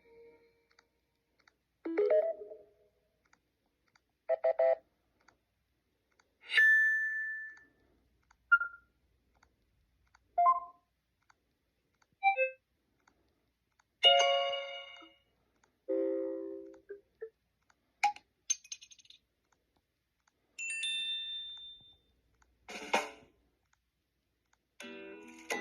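Notification tones on a Samsung Galaxy A15 5G, previewed one after another. There are about a dozen short chimes and jingles, each lasting a second or less, with silence between them.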